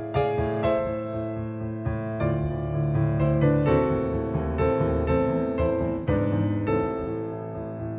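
Soft background piano music: a gentle electric piano melody with notes struck about twice a second.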